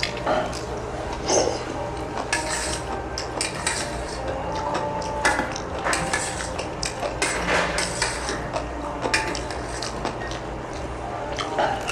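Eating utensils clinking and scraping against dishes, in many irregular short knocks throughout.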